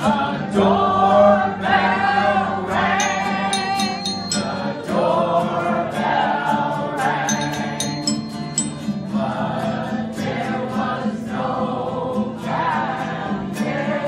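Acoustic guitar strummed in a steady rhythm, with a group of voices singing along.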